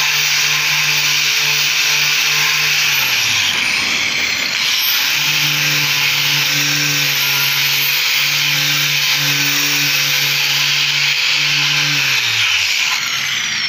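Angle grinder fitted with a sanding disc, running and sanding a wooden door frame: a steady motor hum under the hiss of the disc on the wood. The motor's pitch dips about four seconds in, picks back up, and falls away near the end.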